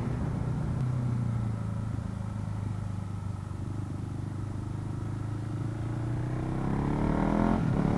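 On-board sound of a KTM 690 SMC's single-cylinder engine under way. It runs steadily, eases off through the middle, then picks up with a rising pitch near the end. With the stock air filter cover refitted, the airbox no longer hammers so much.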